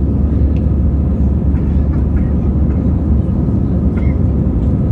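Airbus A320 cabin noise in the climb after takeoff, heard inside the cabin over the wing: a steady deep rumble of the engines and rushing air.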